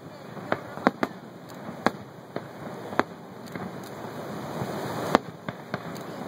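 Aerial fireworks bursting: a string of sharp bangs at irregular intervals, some close together, the loudest about five seconds in, over a steady background noise.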